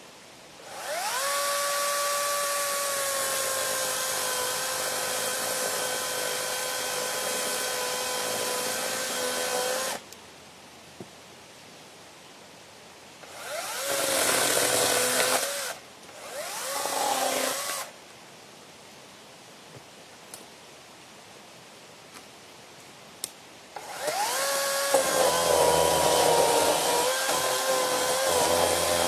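Electric chainsaw motor spinning up with a rising whine, running steadily at a high pitch for about nine seconds, then cutting off. Two short runs follow around the middle, and near the end it spins up again and runs rougher and louder.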